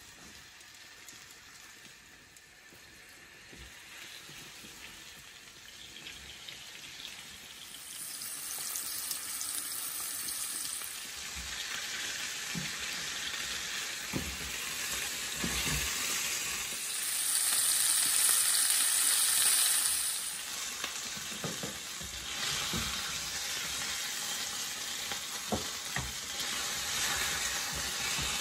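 Flour-dredged fish pieces frying in hot oil in a ribbed grill pan. The sizzle builds as the fish goes in and has two louder surges partway through. Short knocks come from a spatula against the pan as the pieces are turned.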